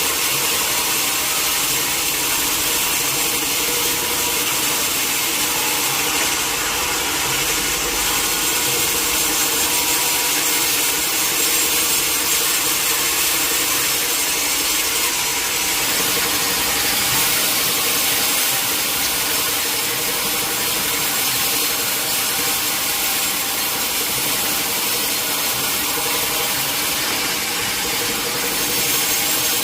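Sawmill saw cutting steadily through a large teak log, with a continuous hissing cut over the steady hum of the saw's machinery.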